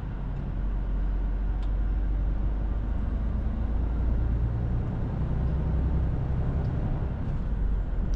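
Cab interior of a Mercedes-Benz Actros L 1848 tractor unit on the move: the 12.8-litre inline-six diesel runs at a steady cruise under a low drone of tyre and road rumble. It grows a little louder about a second in.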